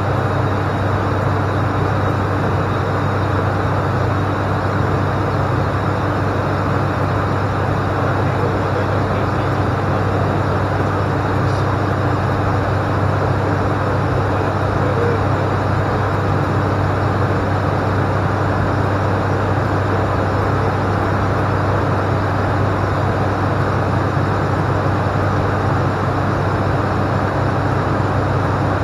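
Steady drone of an ATR 42-500's twin Pratt & Whitney PW127 turboprop engines and propellers, heard from inside the cockpit. It is a constant low hum under an even rushing noise, with no change in power.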